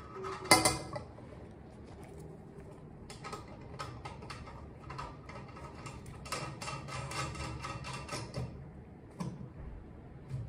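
Centre knob of a ceiling light shade being unscrewed by hand, making quick runs of small clicks and rattles, with one sharp knock about half a second in.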